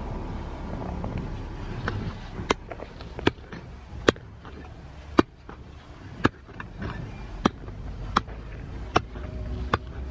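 Small hand hoe chopping into dry, hard-packed soil to dig a hole: sharp strikes about once a second, starting about two seconds in.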